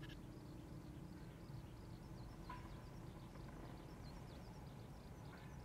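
Faint outdoor ambience: small birds chirping in the background, with short, high, down-sweeping notes several times a second, over a low steady rumble.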